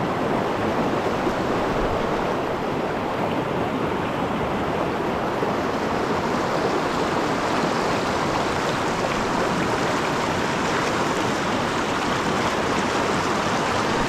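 Steady, even rush of a creek's flowing water.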